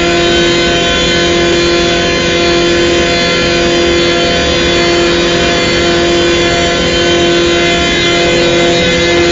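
Five Atlas Copco ZR 6 oil-free rotary screw air compressors running together: a loud, steady mechanical whine of several held tones over a dense rushing noise.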